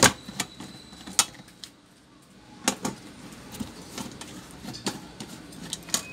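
Irregular sharp clicks and knocks of hands and a tool handling the plastic lid and body of a Hanabishi rice cooker. The loudest knock comes right at the start, and the sounds ease off for a moment around two seconds in.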